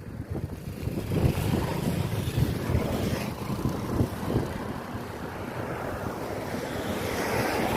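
Wind buffeting the camera microphone: an uneven, gusting rumble with a hiss above it.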